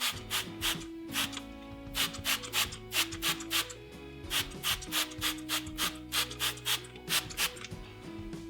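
Trigger spray bottle squirting water onto a crack in a chamotte stove plate to wet it before mortar goes in: quick short hisses, about four a second, with a brief pause midway. Background music plays underneath.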